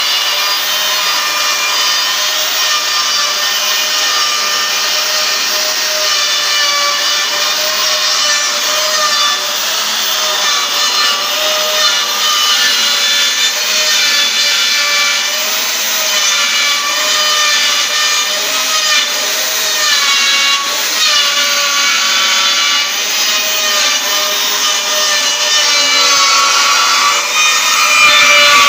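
Metabo KFM 15-10 F electric edge-bevelling milling machine running under load, its cutter milling a chamfer along the edge of a steel beam: a steady whine whose pitch wavers as it cuts, getting a little louder near the end.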